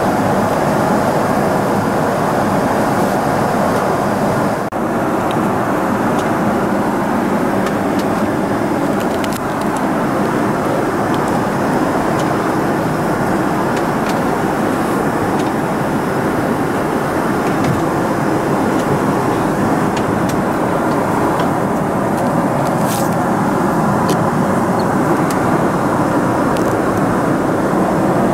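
Steady cabin noise of a Boeing 777-300ER in flight: the even rush of engines and air past the fuselage, with a few faint clicks in the second half.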